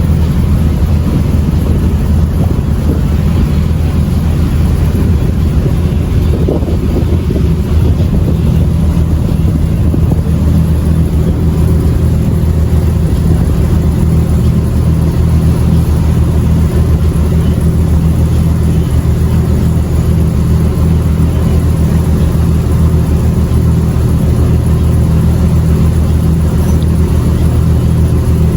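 An engine running steadily at a constant speed: a loud, even low drone with no change in pitch.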